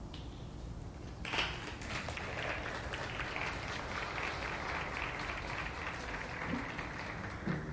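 Audience applauding, starting suddenly about a second in and stopping near the end.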